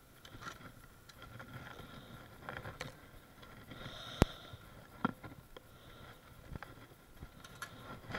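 Handling noise of someone climbing down an aluminium extension ladder: scattered knocks and rustles, with one sharp click about four seconds in and another about a second later.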